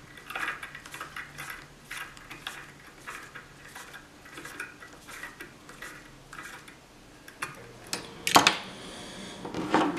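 Light metallic clicks and taps from a brass dubbing spinner being twisted on the wire of a dubbing brush, with one louder knock a little over eight seconds in.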